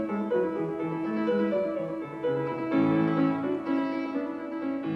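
Piano music playing a gentle melody of held notes, with a fuller, louder chord a little under three seconds in.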